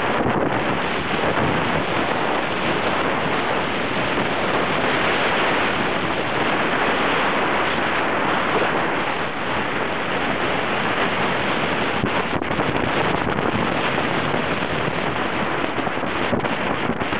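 Steady, loud rushing of wind over the microphone of a camera carried down a ski slope, mixed with the hiss of skis sliding on snow.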